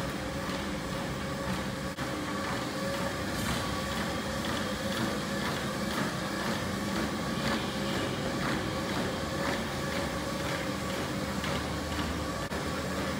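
Motorized treadmill running at brisk-walking pace: a steady motor hum and whine under the moving belt, with soft, regular footfalls about once a second.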